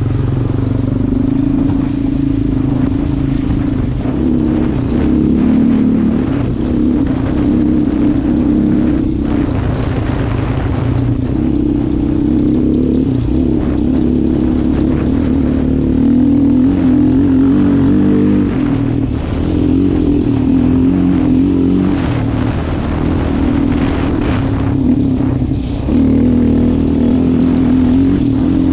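Sport ATV engine running hard under throttle, close up, its pitch rising and dropping every few seconds as the rider works the throttle and gears.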